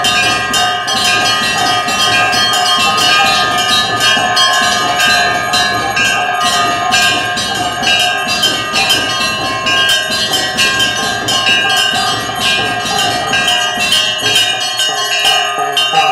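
Puja hand bell (ghanta) rung continuously with rapid, repeated strikes, its ringing tones sustained and overlapping.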